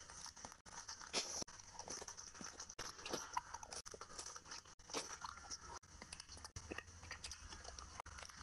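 Close-miked eating by hand: biting into and chewing a curried prawn, an irregular run of short, sharp wet mouth sounds.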